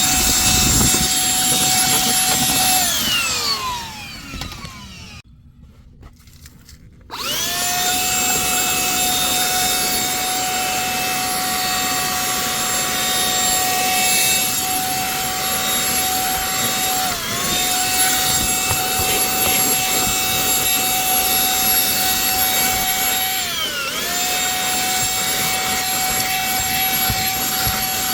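ONAVOT cordless handheld vacuum running with a high, steady motor whine over a rush of suction air. It is switched off about 3 s in, its whine falling away as the motor spins down, then switched back on a few seconds later, rising and settling at full speed. Twice later the pitch sags briefly and recovers.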